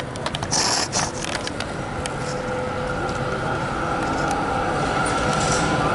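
Tram approaching, with a steady whine over a low rumble that slowly grows louder. Scattered clicks, scrapes and a short hiss come in the first second or so.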